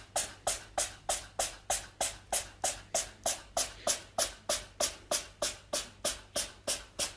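Domestic cat chattering: an even series of short, clicking bursts, about three a second.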